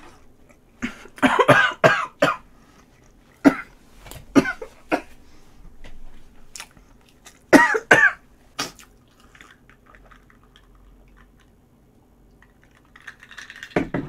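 A woman coughing and spluttering in a series of short fits through the first nine seconds or so, the strongest about a second and a half in and again near eight seconds, set off by a mouthful with too much wasabi.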